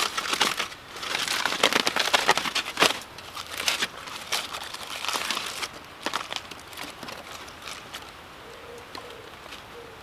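Foil wrapping crinkling and crackling as a parcel of campfire-cooked potatoes is opened to check them. The crinkling is loud for about the first six seconds, then fades to a few faint crackles.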